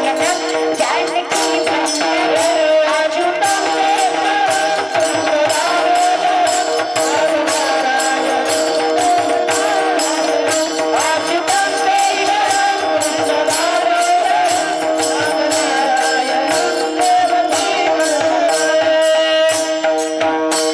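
Devotional kirtan music: small brass hand cymbals (taal) struck in a steady, regular beat over a sustained harmonium drone with a wavering melody line.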